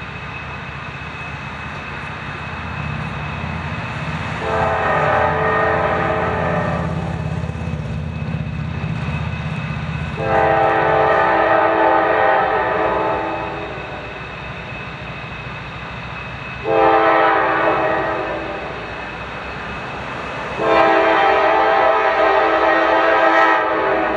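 Norfolk Southern GE Dash 9 diesel locomotive sounding its air horn in the long-long-short-long pattern that warns of a grade crossing, over the rumble of its engine as the freight train approaches.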